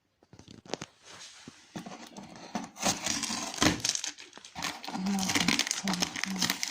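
Packaging being opened by hand: irregular rustling and crinkling with short knocks and crackles, getting busier after the first second or two.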